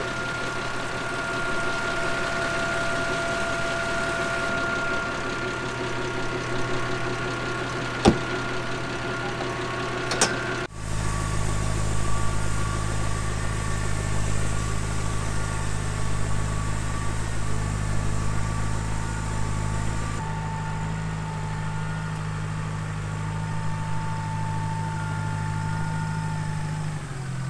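Tractor engine running steadily at idle, with a single sharp click about eight seconds in. About eleven seconds in the sound changes abruptly to a tractor pulling a trailed crop sprayer across the field, its engine running at a steady, even note.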